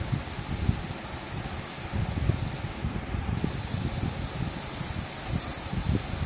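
Small hobby servo motors of a desktop six-axis robot arm whirring and chattering in irregular spurts as the gripper is driven, over a steady hiss.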